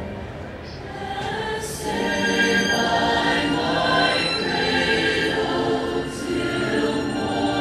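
Large mass choir singing a Christmas carol in sustained chords, growing louder about a second in.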